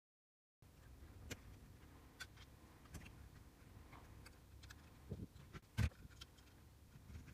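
Scattered clicks and knocks of a car's factory radio unit and its wiring being handled and pushed back into the dashboard, with one louder knock near the end.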